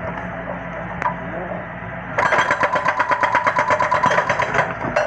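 Doosan DX140W wheeled excavator's engine running steadily. About two seconds in, a rapid, regular hammering of about ten strokes a second sets in and runs for over two seconds, then stops.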